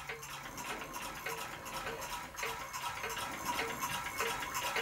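Scratch-built model solenoid beam engine running, ticking softly and evenly with each stroke, a little under two ticks a second, over a faint steady tone.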